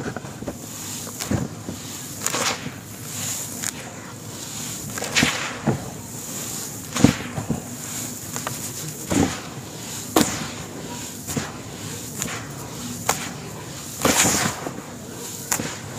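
Hands squeezing and crumbling dry sand-cement powder: irregular sharp crunches and crackles, with a few longer soft hisses of grains pouring and sliding.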